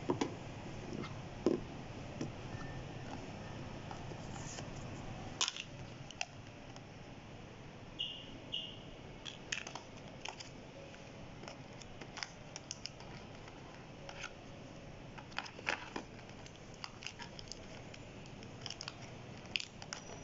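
Scattered clicks, taps and light rustles of hands handling a smartphone box and its contents: cardboard tray, paper warranty packet and plastic wrapping. Two short high-pitched tones about eight seconds in, over a low background hum that drops about six seconds in.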